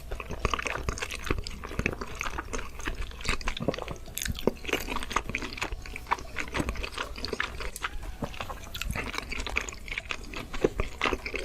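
Close-miked eating sounds: a person chewing food wetly, with a steady run of small moist clicks and smacks.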